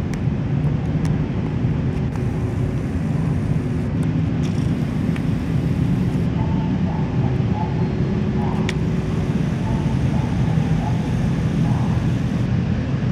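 Boeing 767-300 jet engine running at idle, a steady low rumble with a hum, muffled by the terminal window glass.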